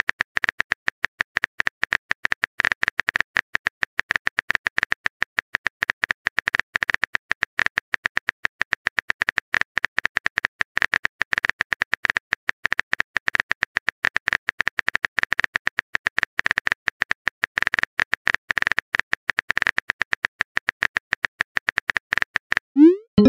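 Phone on-screen keyboard typing sound effect: rapid, even key clicks as a text message is typed out letter by letter. Near the end the clicks stop and a short rising tone sounds as the message is sent.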